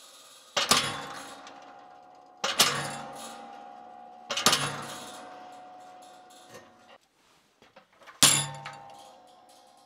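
Hammer blows on a hand-held chisel stamp set on a hot steel bar over the anvil, cutting a decorative star pattern: four separate strikes about two seconds apart, with a longer pause before the last, each ringing on for a second or two.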